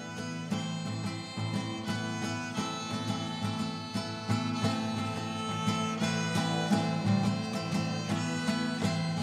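Instrumental music from a song, with plucked strings and sustained notes, and no singing yet.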